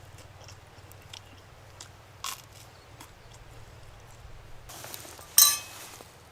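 A few small taps and clicks of a utensil, then one loud clink of metal against a mess tin that rings briefly, about five and a half seconds in.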